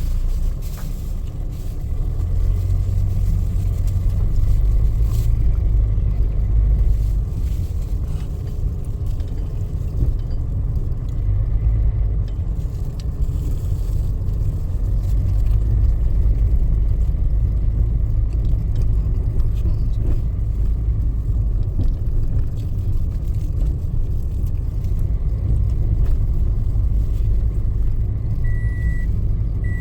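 Steady low rumble of vehicle engines. Near the end a reversing alarm starts to beep.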